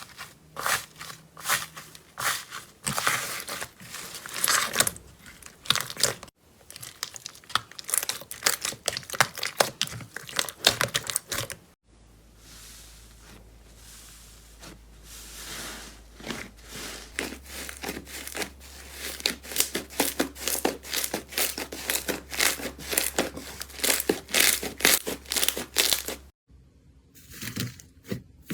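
Slime being squeezed and stretched, giving dense runs of quick crackling, crinkling pops, in several separate clips cut one after another. A quieter stretch of softer squishing over a faint low hum comes about halfway through.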